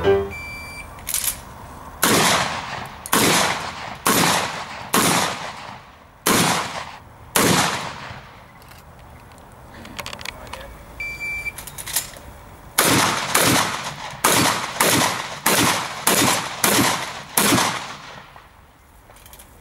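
Competition shotgun fire: a short high beep like a shot timer's start signal, then a string of about seven shotgun shots roughly a second apart, each ringing out. About eleven seconds in comes another beep, followed by a faster string of about eight shots.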